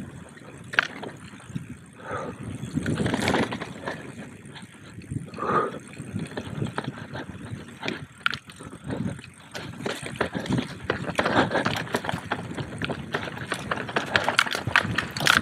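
Mountain bike being moved by hand over a stony trail, with footsteps: irregular clicks, knocks and rattles that grow busier near the end.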